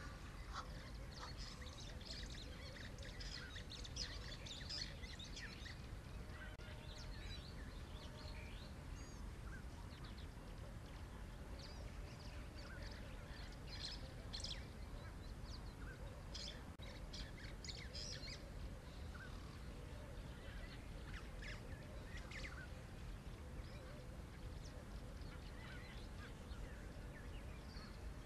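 Assorted wild birds calling faintly: scattered chirps and short calls, more frequent in the first few seconds and around the middle, over a steady low background hiss. A loud honking call from a large bird ends right at the start.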